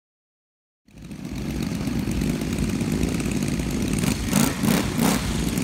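A large scale-model warbird's engine being started: a steady mechanical running noise that cuts in abruptly about a second in.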